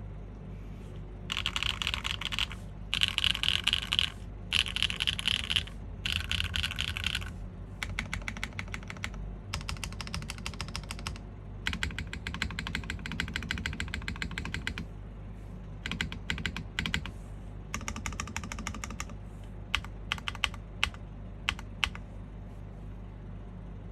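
Typing on a custom top-mount mechanical keyboard with an aluminium plate, factory-lubed Strawberry Wine V2 switches and GMK Redacted keycaps. The keystrokes come in fast runs of a second or two with short pauses between them, and thin out to scattered single presses near the end.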